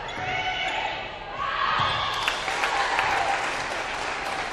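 Spectators and players in a gymnasium cheering, shouting and clapping as a volleyball rally ends and a point is won, swelling about a second and a half in.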